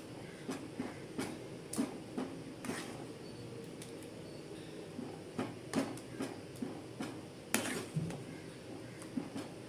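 A metal ladle stirring sambar in a metal pan, clinking and knocking against the pan's side in irregular short strikes, with one louder knock about seven and a half seconds in.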